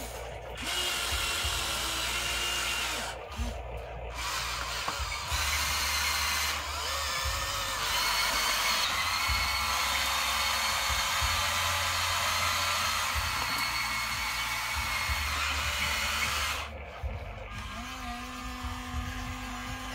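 Electric motors and gearboxes of a Huina radio-controlled toy excavator whining as it works its arm and drives on its tracks. The whirring comes in spurts, with a long steady run in the middle, and drops off near the end.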